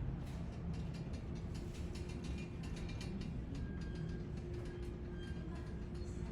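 Inside a moving car ferry: a steady low drone from the ship's engines, with many small irregular clicks and creaks from the interior fittings working as the vessel moves.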